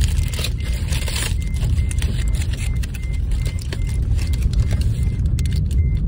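Aluminium foil crinkling as it is unwrapped from a takeaway food portion, over the steady low road rumble inside a moving car.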